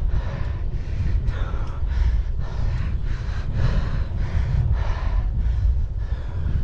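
Cyclist breathing hard and fast from the effort of a hill climb, about two heavy breaths a second. Under it runs a steady low rumble of wind on the microphone.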